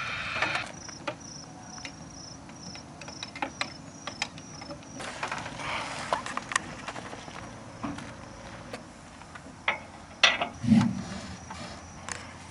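Insects chirping in a high, evenly pulsing pattern, with scattered clicks and knocks and a couple of louder thumps about ten seconds in.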